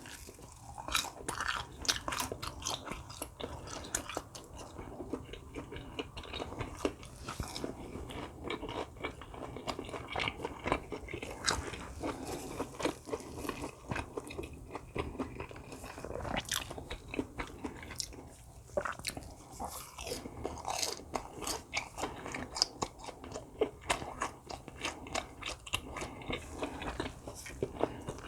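A person biting and chewing crunchy food close to the microphone, with many quick, irregular crunches and crackles.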